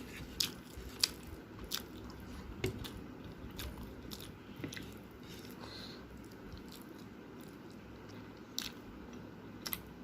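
A person chewing and biting food close to the microphone, with irregular crisp mouth clicks and crunches that come thickly at first and thin out in the second half.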